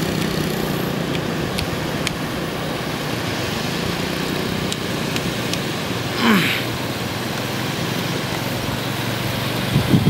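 Steady wash of low surf on a sandy beach, with a low hum in the first couple of seconds and a short call falling in pitch about six seconds in. Voices start near the end.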